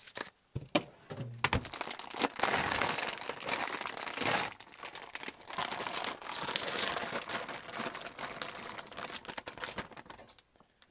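Plastic food bag crinkling and rustling as it is handled and emptied into a steel bowl, after a few sharp knocks in the first couple of seconds.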